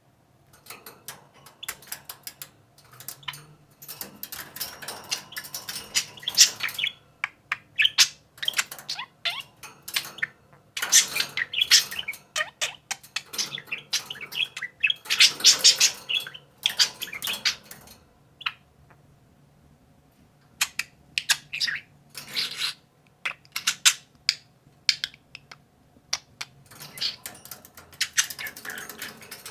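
Two budgerigars chattering and warbling in rapid runs of chirps, clicks and trills. One of them mimics human words, saying "cute" about nine seconds in, "hey Siri" about twenty seconds in and "good bird" near the end.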